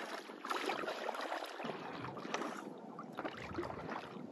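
Repeated strokes of a double-bladed paddle dipping and splashing in pond water as a small one-person plastic boat is paddled.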